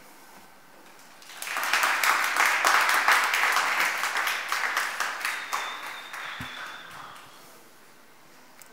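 Audience applauding, starting about a second and a half in, loudest for a couple of seconds and then fading out.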